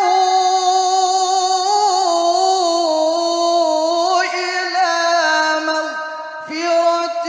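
A male qari reciting the Qur'an in a high-pitched, melodic tilawah, drawing out long ornamented notes in one sustained phrase. There is a short break for breath about six seconds in, then the next phrase begins.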